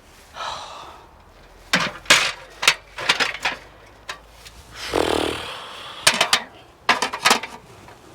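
Aluminium stepladder being moved and set up: irregular metallic clanks and knocks in two clusters, with a little rustling in between.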